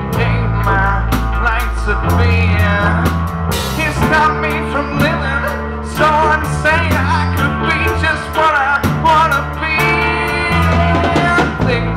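Live reggae band playing: a man singing lead over electric guitar, bass guitar, keyboard and drum kit, with a steady bass line and regular drum hits.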